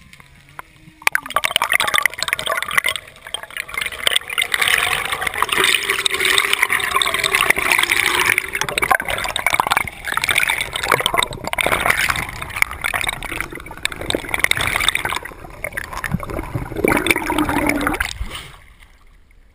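Underwater rushing and gurgling of water against the camera housing as the freediver swims up, starting suddenly about a second in and stopping shortly before the end as the camera breaks the surface.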